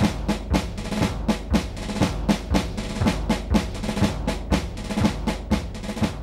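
Background music with a steady drumbeat, about four strokes a second, over held low notes.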